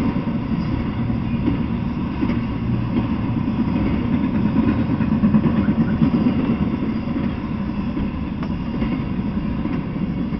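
Intermodal freight train of highway trailers on flatcars rolling past, a steady low rumble of steel wheels on rail. The rumble eases slightly near the end as the last car clears.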